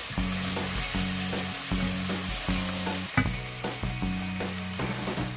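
Chopped onion and spices frying in hot oil in a nonstick pan, sizzling steadily as they are stirred with a wooden spatula, with a single knock about three seconds in.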